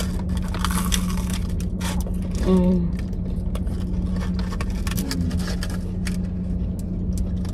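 Steady low hum of a car's cabin with the engine running, under repeated crisp crackles as flaky fried pie crust is bitten and chewed and the cardboard pie sleeves are handled. A brief hummed "mm" about two and a half seconds in.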